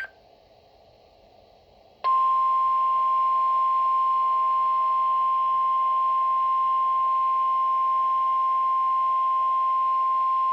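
Emergency alert attention tone: the NOAA Weather Radio 1050 Hz warning alarm, a single loud, steady pure tone that starts about two seconds in after a faint hiss and holds unchanged. It signals a warning-level alert, here a severe thunderstorm warning.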